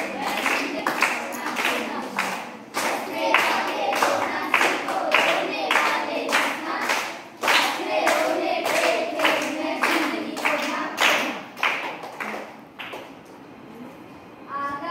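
A group of children clapping their hands in a steady beat while their voices chant along. The clapping stops about two seconds before the end.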